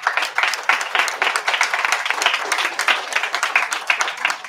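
Audience applauding, a dense clapping that starts suddenly and holds steady.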